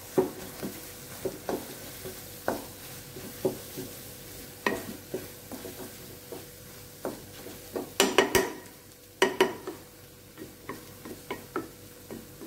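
Spatula stirring and scraping scrambled egg around a nonstick kadai, mixing in sprinkled pepper powder: irregular scrapes and light taps against the pan, the loudest cluster about eight seconds in.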